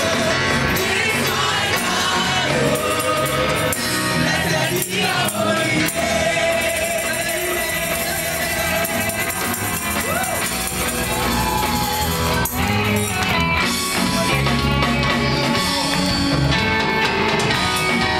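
Live gospel band playing praise-and-worship music with singing: electric guitars, bass, congas and drum kit.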